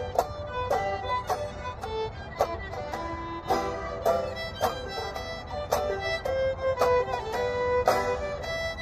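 Fiddle and banjo playing an instrumental break together: long bowed fiddle notes over a run of quick picked banjo notes.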